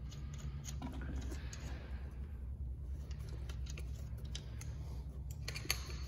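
Irregular light clicks and small scrapes as a metal propeller hub dome is seated and its dome nut hand-tightened, over a steady low hum.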